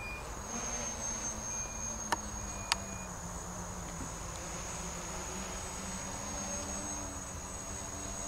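Tricopter's three brushless motors (Joker 2826-12) with 8x4.5 propellers buzzing in flight, the pitch shifting a little with throttle. Two sharp clicks a little after two seconds in, about half a second apart.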